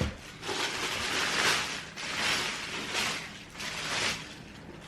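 Shoebox and its packaging being handled: a sharp knock at the start, then four rustling swishes, the longest over a second.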